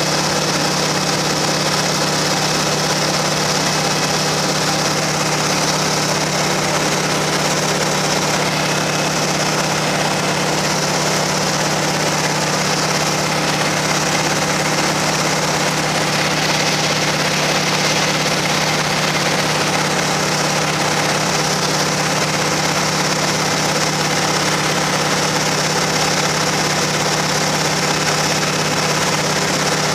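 Noorduyn Norseman's single radial engine running steadily during takeoff and climb, a constant drone with a steady hiss over it.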